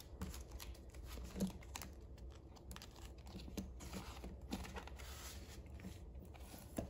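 Clear plastic cash envelopes and paper bills being handled, rustling and crinkling quietly, with a few light clicks.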